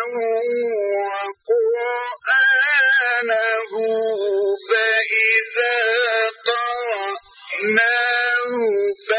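A male Quran reciter chanting in melodic tajweed style: long, held, wavering notes sung in phrases, broken by several brief pauses for breath.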